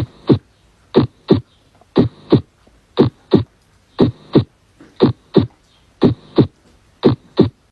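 Heart sounds on auscultation: a steady lub-dub, each beat a pair of short thumps about a third of a second apart, at about one beat a second, with little heard between the beats.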